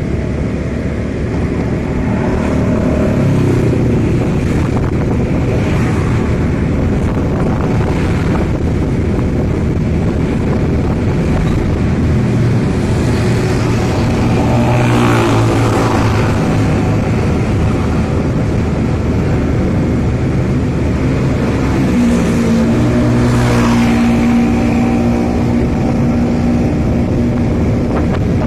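Road vehicles running steadily: engine and tyre noise, with the engine pitch rising and falling a few times.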